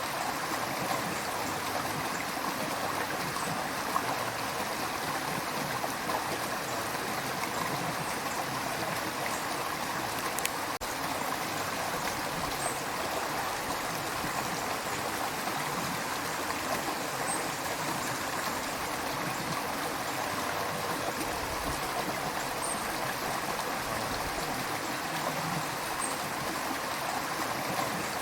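River water running steadily over rocks, a continuous rushing with a light trickle and gurgle.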